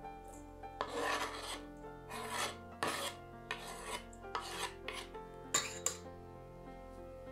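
A knife blade scraping grated mozzarella across a bamboo cutting board and off its edge into a bowl: about seven short scrapes of metal on wood, the first and longest about a second in.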